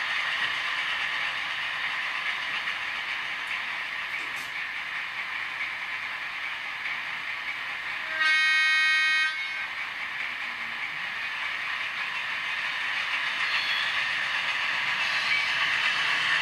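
Model diesel locomotive (DB V200) sounding one horn blast from its sound decoder, a single steady tone about a second long, about halfway through. Under it runs the model's steady running noise, a hiss-like rush.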